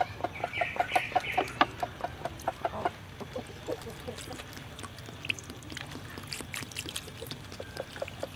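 Chickens clucking: a quick run of short clucks, about four or five a second, over the first three seconds, then sparser clucks and clicks.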